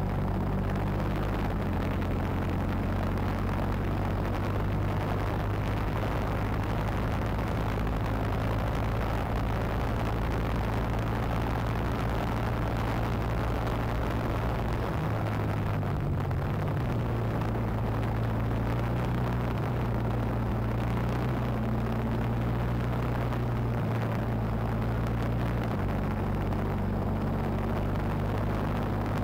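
Kart engine running continuously at speed, recorded onboard, over a steady rush of wind and road noise. The engine note stays fairly even and shifts in pitch a few times, around 16 and 26 seconds in.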